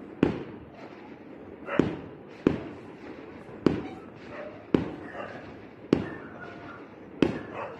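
Aerial fireworks bursting: seven sharp bangs at uneven intervals of about a second, each trailing off briefly.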